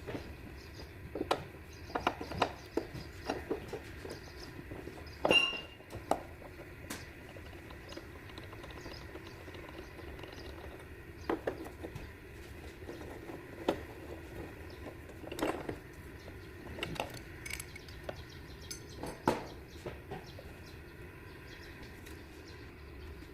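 Scattered clinks and knocks of hand tools and metal parts being handled, irregular and spaced a second or more apart. About five seconds in there is a louder metallic clank that rings briefly.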